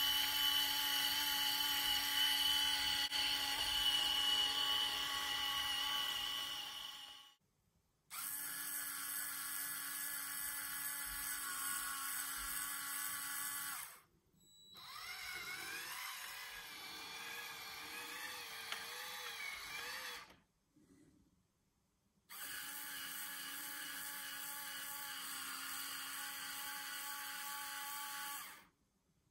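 Small electric Circuitcube motors and plastic gearing of a LEGO model shunter whining steadily, in four stretches broken by short silences; in the third stretch the pitch wavers up and down.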